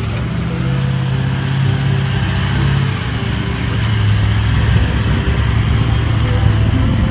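Toyota LandCruiser 200 Series V8 engine running low and steady as the four-wheel drive crawls slowly over bare rock, its pitch dropping slightly about three seconds in.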